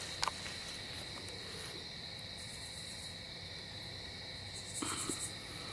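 Crickets chirping steadily in a constant high-pitched chorus. There is a small click just after the start and a short soft noise about five seconds in.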